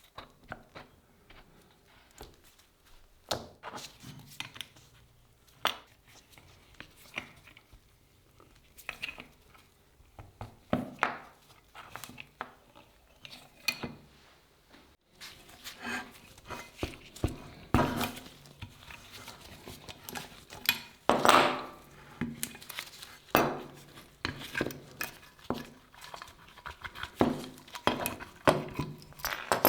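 Irregular metallic clinks and knocks from hand work on a steel cleaver, sparse at first and busier and louder from about halfway through.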